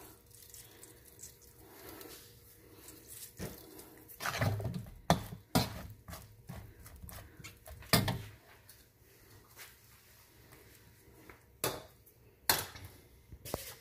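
Metal slotted spatula scraping and clanking against a wok while tossing sticky sauced chicken pieces, with several sharp knocks, the loudest about five and eight seconds in.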